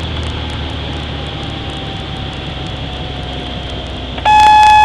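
Light airplane's piston engine droning steadily inside the cockpit on landing. Near the end the stall warning horn sounds loudly with one steady tone as the plane flares for touchdown.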